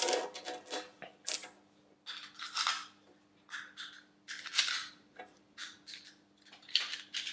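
Brass .223 Rem cartridges being picked up and pressed one at a time into the rifle's detachable four-round magazine: a string of short, irregular metallic clicks and scrapes.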